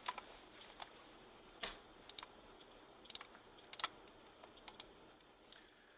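Near silence with a handful of faint, irregular clicks from a computer keyboard.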